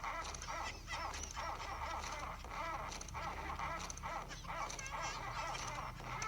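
A pet animal whining or crying over and over, a run of wavering drawn-out calls with short breaks between them.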